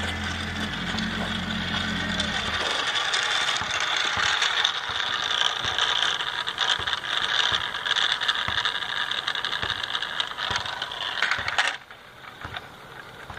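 Rubber-band-powered 5-inch wooden ducted fan spinning as its wound rubber motor unwinds: a steady whirring rattle with scattered clicks from the little wooden car. It cuts off suddenly near the end.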